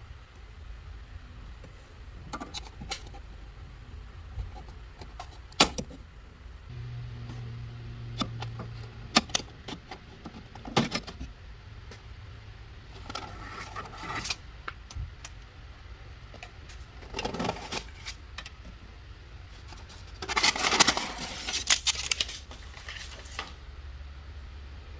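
Scattered clicks, knocks and scrapes of parts and packaging being handled, with a denser burst of rattling and rustling about 20 seconds in, over a low steady hum.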